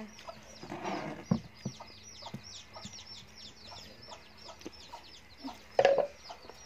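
Small birds chirping, a rapid run of short high chirps about five a second, with a few soft clicks and rustles of fingers mixing rice on a steel plate and one louder short sound near the end.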